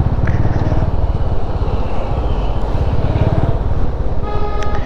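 Motorcycle engine running steadily on a ride along a rough road, with a vehicle horn beeping briefly near the end.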